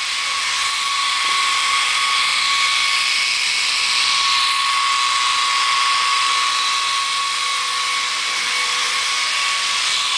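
Small electric motors of a Silverlit RC coaxial toy helicopter running, with the twin rotors whirring: a steady, high-pitched whine.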